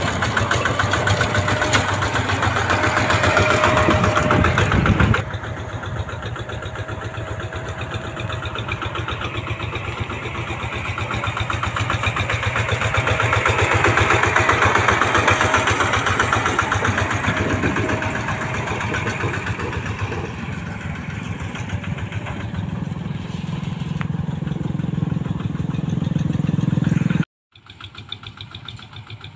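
Kubota tractor's diesel engine running steadily with a fast, even firing pulse. The sound drops suddenly about five seconds in, cuts out for a moment near the end, then returns quieter.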